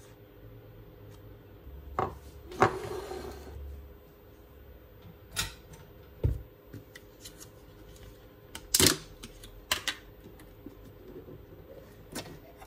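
Food packaging and containers handled on a kitchen countertop: a short paper-and-plastic rustle, then a series of separate knocks and clacks as containers are set down and a plastic yogurt-tub lid is taken off, with the foil seal being peeled near the end.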